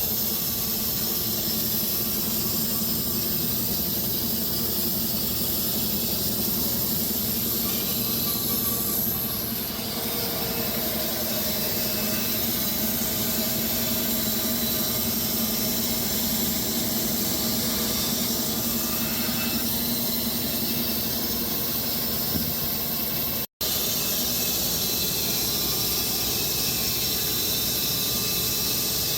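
Wood-Mizer LX250 electric band sawmill running steadily, its band blade cutting through walnut and oak logs with a continuous high hiss over a low motor hum. The sound breaks off for an instant about three-quarters of the way through.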